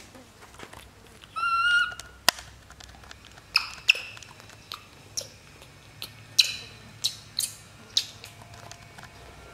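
Baby monkey crying: one high-pitched cry about a second and a half in, then a string of short, sharp chirps and clicks.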